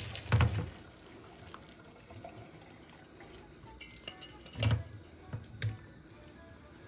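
Hot cooking water and boiled spleen poured from a steel pot into a plastic colander in a stainless steel sink: faint splashing and draining water, with a few dull knocks about half a second in and again around five seconds in.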